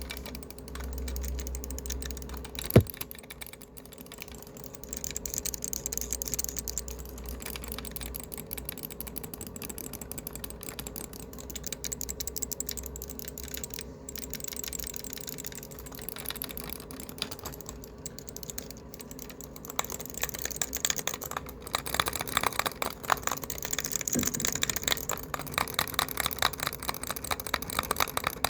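Fast, hard typing on a laptop keyboard: a dense, continuous stream of key clicks that gets louder and busier about two-thirds of the way through, with one sharp loud click a few seconds in.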